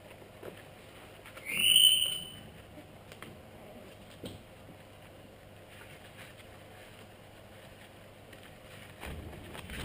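Pug cross puppy giving one short, high-pitched rising yelp about a second and a half in, among faint taps and scuffles of puppies playing.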